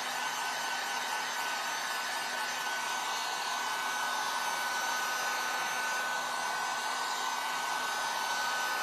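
Handheld electric heat gun running steadily, blowing hot air over the board's surface. It is a constant rush of air with a thin steady whine on top.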